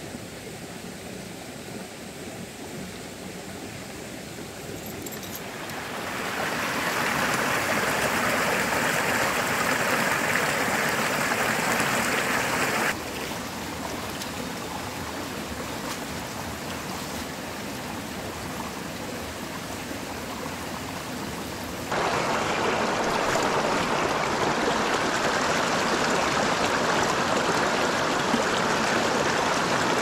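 Mountain stream water running over rocks, a steady rushing. It grows louder about six seconds in, then drops suddenly around the middle and comes back up just as suddenly a little later.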